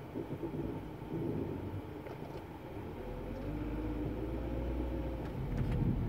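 A car stopped with its engine idling, with a faint wavering tone in the cabin that slowly bends in pitch over the last few seconds. This is the weird noise the car makes at a complete stop when the brake pedal is let up slowly.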